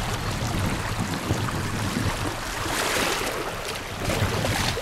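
Fast, shallow river water rushing steadily.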